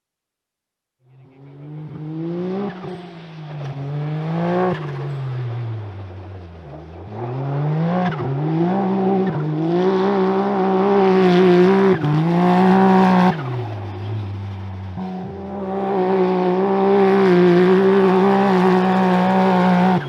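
Quad (ATV) engine being ridden hard, its revs climbing and dropping again and again with throttle and gear changes, and held high and steady for several seconds near the middle and toward the end.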